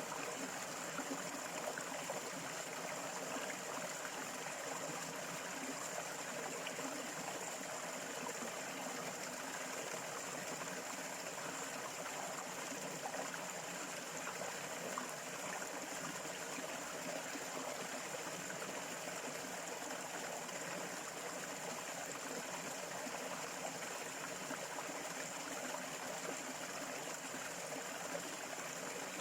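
A stream of water running steadily, with a constant thin high-pitched tone above it.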